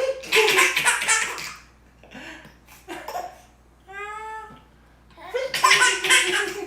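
A baby laughing hard in two bouts of choppy laughter, with a short high-pitched vocal call between them.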